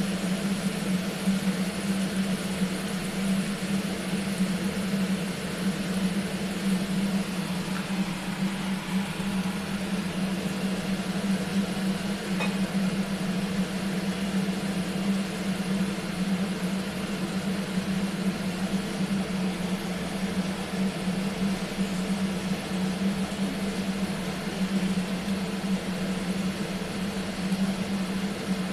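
A steady mechanical hum that never changes, over a faint even hiss of onions and ginger-garlic paste frying in a pan.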